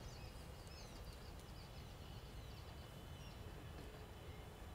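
Faint outdoor ambience: small birds chirping in the background, mostly in the first half, over a low steady rumble.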